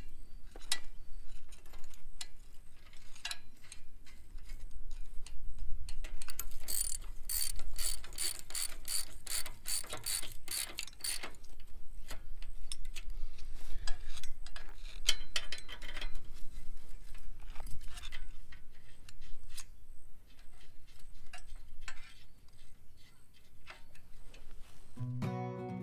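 Hand ratchet wrench clicking as bolts are run down on a sickle mower's cutter bar, with metal parts clinking; a steady run of ratchet clicks, about three a second, comes about a third of the way in. Acoustic guitar music starts near the end.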